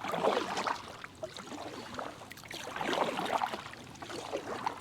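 Kayak paddle strokes in the water, two swells of splashing and swishing about three seconds apart.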